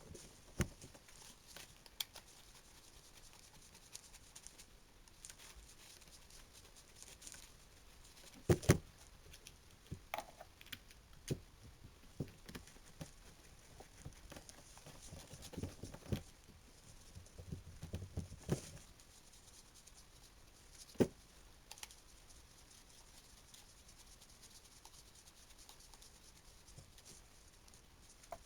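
Parts of an electric drill being handled during reassembly: scattered small clicks, taps and rustles, with a sharper knock about eight seconds in.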